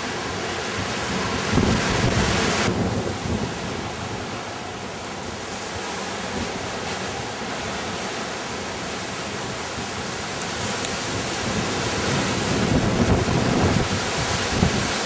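Wind buffeting the microphone: a rushing, gusty noise with low rumbles, easing off in the middle and growing louder again near the end.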